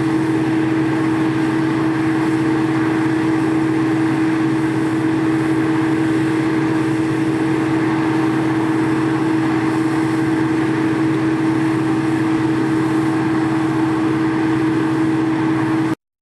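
Heavy farm harvest machinery running steadily under load, a loud engine with a strong steady hum over a noisy wash; it cuts off suddenly near the end.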